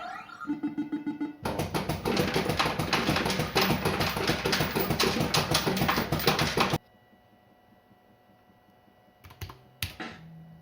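Bell Fruit Cash Explosion fruit machine giving out a rapid run of clicking and clattering for about five seconds, typical of a 120 win being paid out. It stops abruptly, leaving a faint electrical hum, and a couple of single clicks come near the end.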